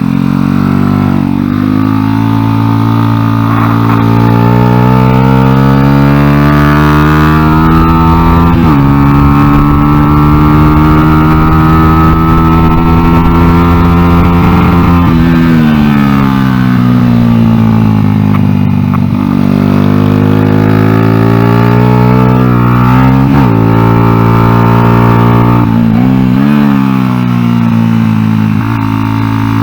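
Small single-cylinder four-stroke motorcycle engine, a Honda XR100 in an NSF100 race bike, under hard acceleration: revs climb and drop sharply at each upshift, hold high on a straight, fall away as the throttle closes for a corner about halfway through, then climb again through the gears.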